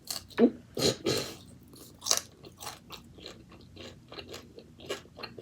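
Close-up chewing and crunching of roasted pork with its skin: a run of short, crisp bites and chews, loudest in the first couple of seconds.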